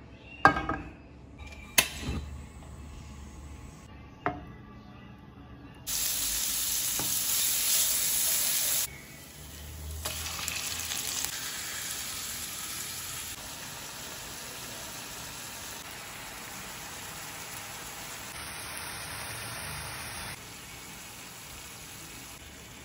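Minced meat with chopped onion, garlic and carrot sizzling in hot oil in a nonstick frying pan, stirred with a wooden spatula. A few sharp knocks come in the first few seconds. A loud burst of sizzling lasts about three seconds, then settles to a steadier, quieter sizzle.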